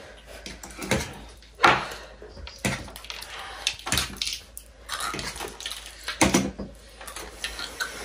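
Two people eating noodles: slurping and chewing, with a fork and chopsticks tapping against plates, heard as a string of short, sudden sounds. The loudest comes a little under two seconds in.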